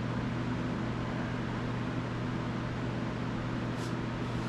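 Steady machine hum with an even hiss, with a brief faint tick near the end.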